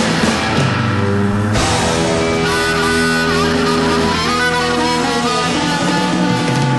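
Live rock band playing loudly: electric guitar over bass and drums, with held lead notes that bend in pitch midway through.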